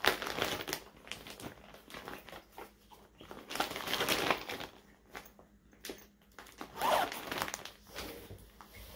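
Packaging crinkling and rustling in irregular bursts as skeins of yarn are handled and moved.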